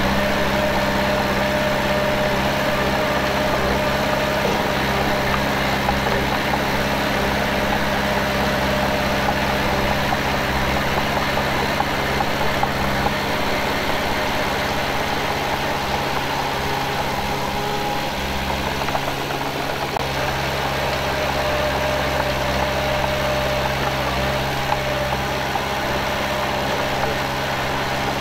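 Diesel engine of heavy earthmoving machinery running steadily at an even pitch.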